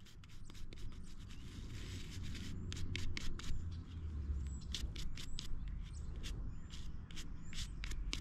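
Hands rubbing and turning a small dug-up metal relic, giving many quick irregular clicks and light scrapes over a low rumble.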